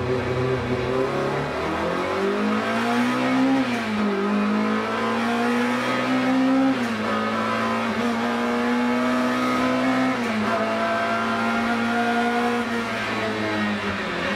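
BMW M3 2.5 Group A race car's four-cylinder engine heard from inside the cockpit, running hard. After a steady opening, the engine note climbs from about two seconds in and drops back a few times as the car shifts and lifts through the bends.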